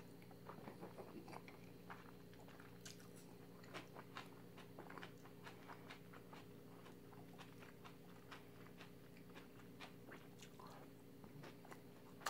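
Faint close-miked chewing of a mouthful of jjajangmyeon (black-bean noodles): soft, scattered wet mouth clicks and smacks over a steady low hum.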